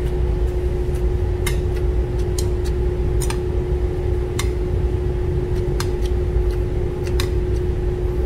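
Metal chopsticks clicking against ceramic plates in scattered sharp taps as noodles are lifted from plate to plate. A steady machine hum with a low rumble runs underneath.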